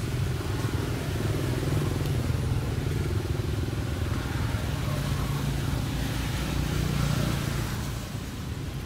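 Steady low drone of an engine running, dropping in level about eight seconds in.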